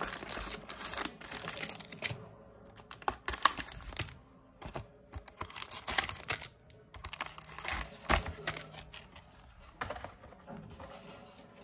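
Foil Yu-Gi-Oh booster pack wrappers being handled and torn open: crinkling and crackling in bursts of about a second, stopping and starting.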